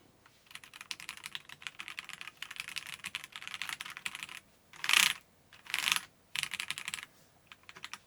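Typing on a Keychron C3 Pro gasket-mounted mechanical keyboard: fast runs of key clicks, broken twice near the middle by a louder, longer clack, then a shorter flurry and a few last keystrokes.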